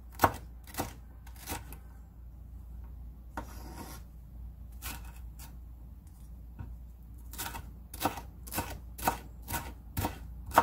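Chef's knife slicing bell pepper into strips on a wooden cutting board, each stroke a sharp knock of the blade on the board. A few cuts, a pause with a brief rustle, then a steady run of cuts about two a second.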